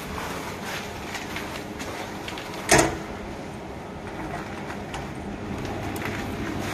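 Latch and door of a CNC machine's steel electrical cabinet being worked open, with one sharp knock a little before the middle, over a steady machine-shop hum.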